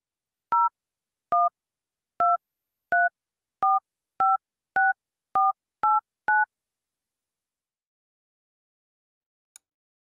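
Touch-tone (DTMF) telephone keypad tones dialing the digits 0 through 9 in order: ten short two-note beeps, coming a little faster toward the last ones. A faint tick follows near the end.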